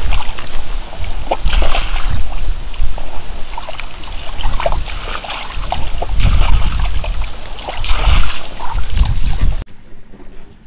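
Hands sloshing and splashing water in a metal bowl while washing raw fish steaks, in irregular splashy bursts. The sound cuts off suddenly near the end.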